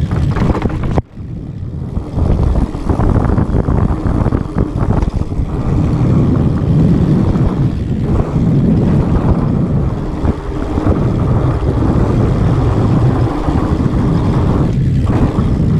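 Mountain bike being ridden fast down dirt singletrack: a steady low rumble of wind buffeting the rider's camera microphone, mixed with knobby tyres rolling on dirt and the bike rattling over roots and rocks. The sound drops out sharply for a moment about a second in.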